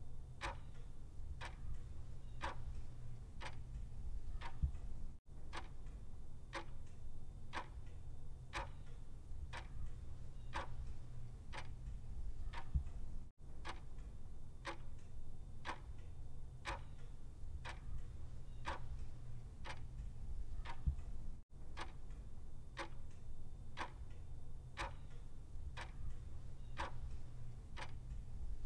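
Clock ticking steadily, about two ticks a second, over a low steady hum. The ticking cuts out for an instant about every eight seconds.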